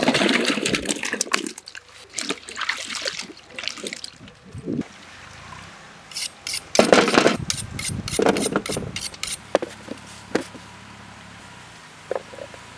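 Vegetables (peeled onions, ginger and green chillies) being rinsed by hand in water: irregular splashing and sloshing, with a quick run of sharp clicks about six seconds in.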